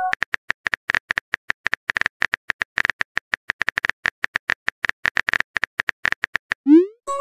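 Rapid phone-keyboard typing clicks, several a second, as a text message is typed into a chat app. Near the end comes a short rising swoosh, the chat app's message-send sound.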